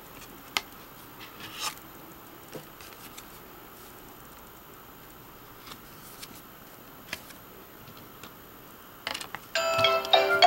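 Quiet room tone with a few faint clicks, then the music of a children's song starts up near the end.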